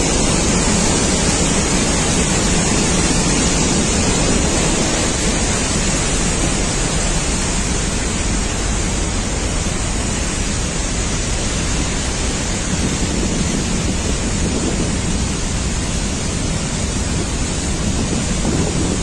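Floodwater of a river in flash flood rushing, a loud steady noise that does not let up.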